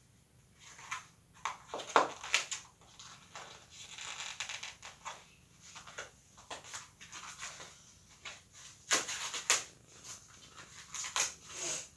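Packaging crinkling and rustling in irregular bursts as a parcel is handled and opened by hand, with a few louder crackles.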